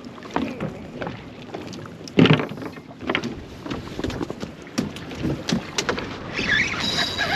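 Scattered clicks and knocks of fishing gear being handled on a small boat, over wind and water noise, with a louder thump about two seconds in.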